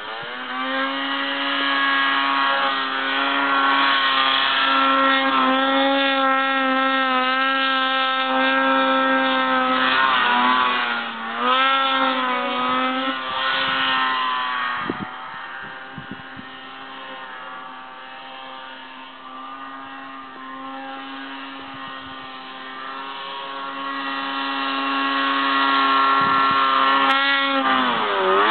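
Snowmobile engine running at high revs while ploughing through deep powder. Its pitch holds mostly steady, with brief dips and rises about ten to thirteen seconds in and a sharp dip just before the end. It is quieter through the middle and grows loud again near the end.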